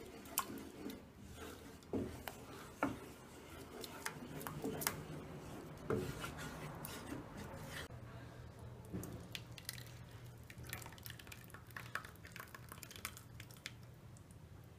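Wooden spoon stirring a thick, creamy custard in a metal saucepan, with scattered knocks and scrapes against the pan and a wet squish. About eight seconds in the knocks mostly stop as the cream is poured into a ring mold, leaving a faint low hum.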